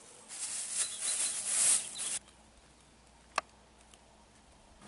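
Rustling of olive tree leaves and branches as olives are picked by hand, lasting about two seconds and then cutting off. A single short click follows.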